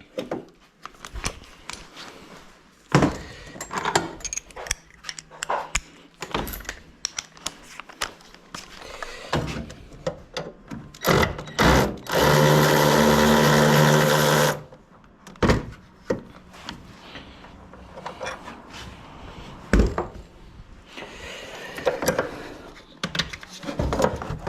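Tools and metal parts clinking and knocking at irregular intervals, with a power tool such as a cordless drill-driver running steadily for about two seconds in the middle, the loudest sound here.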